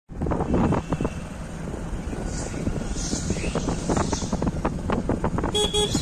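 Motorcycle running along a road, with wind buffeting the microphone. Near the end the horn gives two short toots.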